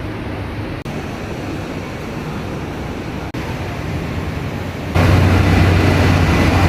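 Steady low rumbling noise with no clear single event, cut abruptly twice and jumping louder about five seconds in.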